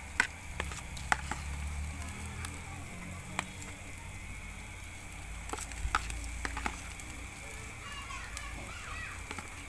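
Barbecue sounds: scattered sharp clicks and knocks over a steady low rumble.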